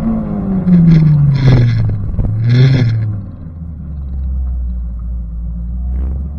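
Car engine with its revs falling over the first few seconds, a brief blip of throttle between, and two short hissing bursts. The engine then settles to a steady low idle.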